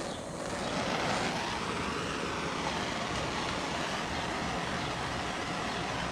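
Handheld gas torch flame burning with a steady hiss while it heats heat-shrink wire connectors to shrink them down and melt their glue.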